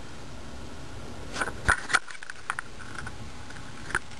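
Handling noise: several light clicks and taps from a hand moving the device and camera, bunched about a second and a half to two seconds in and once more near the end, over a steady background hiss.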